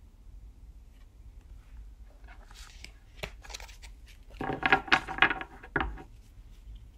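Photo cards and packaging being handled: light rustling, then a louder burst of crackly rustling with a few clicks from about a second and a half before the end.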